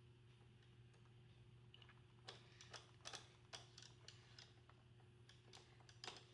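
Faint, light clicks and taps of a Phillips screwdriver and the plastic side brush as the brush is screwed back onto an iRobot Roomba 650: nothing for about two seconds, then about eight short, irregular clicks.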